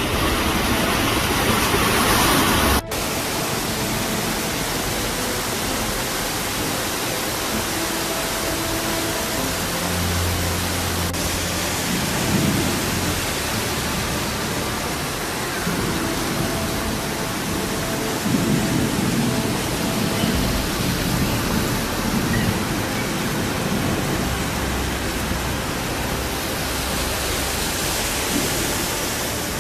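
Heavy rain pouring down in a steady hiss, with occasional low rumbling. About three seconds in the sound cuts sharply from one recording to another.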